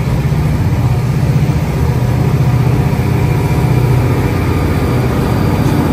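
EMD diesel-electric locomotives running at full throttle (notch 8): a loud, steady low engine drone with a rapid throb.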